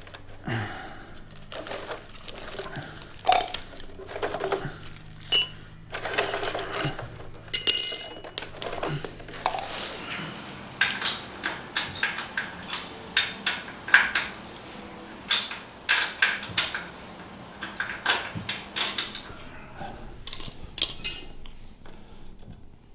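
Metal hand tools clinking and clanking as they are picked up, handled and set down: many irregular sharp knocks, a few with a brief metallic ring.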